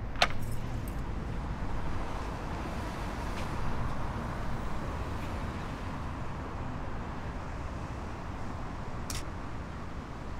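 Steady street traffic noise, with a sharp click just after the start. Near the end comes a short, high click of a film SLR camera's shutter.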